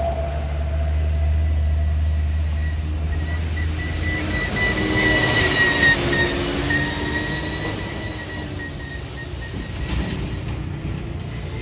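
A heavy truck's engine running low, then a long high-pitched brake squeal from a passing truck that swells about five seconds in and fades away.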